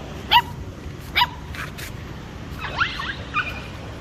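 Dogs yipping in play: two sharp, high yips in the first second and a half, then a quick run of shorter rising yips near the end.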